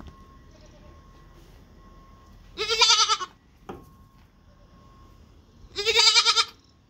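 Baby goat bleating twice, two short wavering bleats about three seconds apart.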